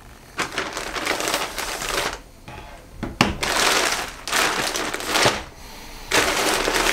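Plastic poly mailer bag crinkling as it is handled, in three long bursts, with a single sharp knock about three seconds in.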